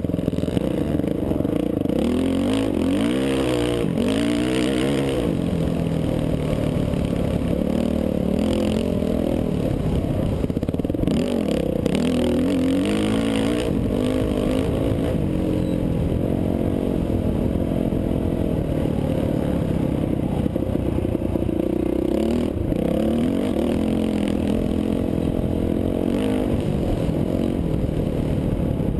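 Dirt bike engine heard from on board while riding a dirt trail, revving up and dropping back again and again as it shifts and rolls off, with bursts of rattling over rough ground.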